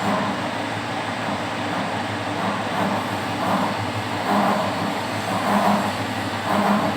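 CNC milling machine cutting a thread with a thread mill: a steady spindle and machine hum with a cutting noise that swells and fades about once a second.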